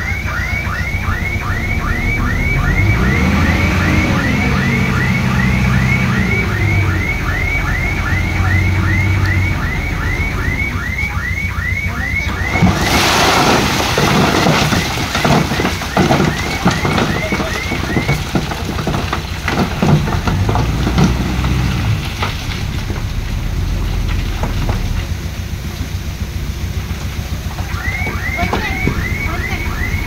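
Diesel construction machinery running, with engine revs rising and falling, under a vehicle's electronic warning alarm chirping rapidly, about three chirps a second. About thirteen seconds in, a loud rush of stone clattering and tumbling lasts several seconds while the alarm stops. The alarm returns near the end.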